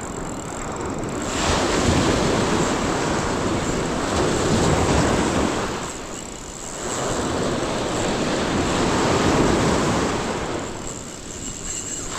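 Surf breaking and washing up a beach, two waves surging in about five seconds apart, with wind buffeting the microphone.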